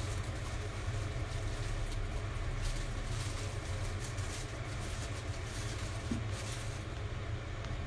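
A steady low rumble, with light rustling from a plastic bag of herbs being handled a few seconds in and again near the end.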